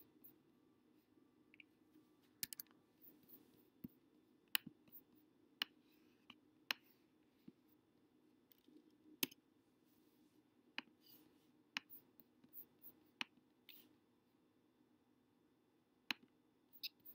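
Faint, scattered clicks of a computer mouse being worked, roughly one a second at irregular intervals, over a faint steady low hum.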